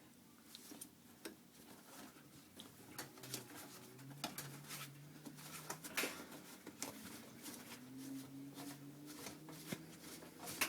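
Washing machine drum spinning: a faint low motor hum that starts about three seconds in, with a higher hum joining near eight seconds, under scattered light clicks and rustles.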